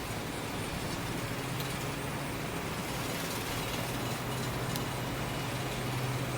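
A road vehicle's engine running with a steady low hum that grows louder near the end, over general street traffic noise.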